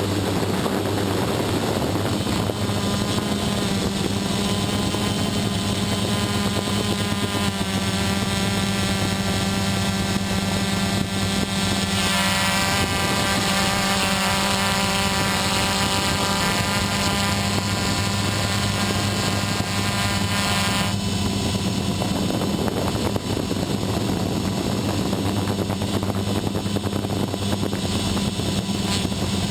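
XP2 quadcopter's electric motors and propellers buzzing in flight, heard from the camera riding on the craft: a steady low hum under a set of higher whining tones that shift in pitch with the throttle. The whine grows louder and brighter about twelve seconds in and settles back about nine seconds later.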